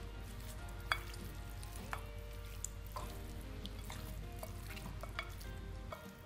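Hand mixing raw chicken pieces coated in salt, pepper and turmeric in a ceramic bowl: wet squishing and turning, with a few sharp clicks. Soft background music with held notes underneath, and a low hum that cuts off near the end.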